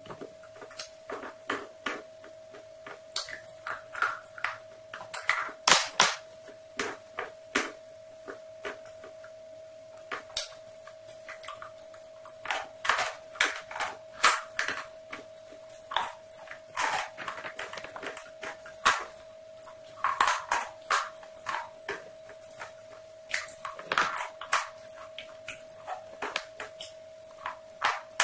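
Crispy coating of KFC spicy fried chicken crunching irregularly as it is bitten and chewed, in quick clusters of crunches with short pauses between. A steady thin whine runs underneath.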